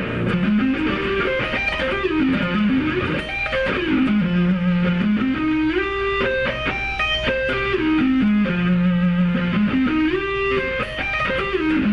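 Electric guitar played as fast single-note runs, stepping up and down the scale and repeating the pattern several times.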